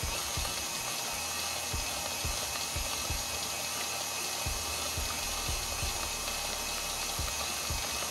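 KitchenAid Artisan tilt-head stand mixer running, its beater turning through thick pound cake batter in the bowl, with a steady motor whine.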